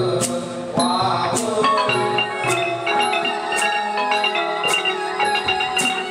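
Thai piphat ensemble music accompanying khon dance: quick runs of mallet notes on ranat xylophones and gong circles, with a small hand-cymbal stroke (ching) about once a second keeping the beat.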